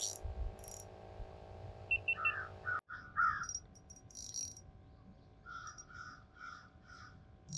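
Crows cawing: a few short caws, then a run of about six evenly spaced caws, roughly two a second, near the end.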